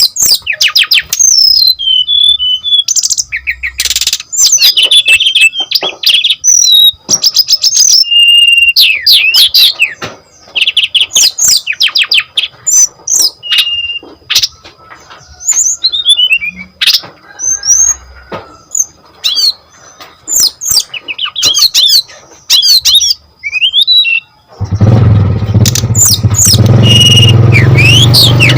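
Brown-chested jungle flycatcher singing a fast, varied song of clear whistles, rapid trills and sweeping notes. About 25 seconds in, a loud low rumbling noise comes in under the song.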